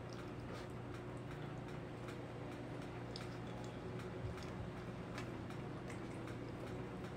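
Faint, irregular mouth clicks and smacks of someone chewing a bite of tender slow-cooked pork roast, over a steady low hum.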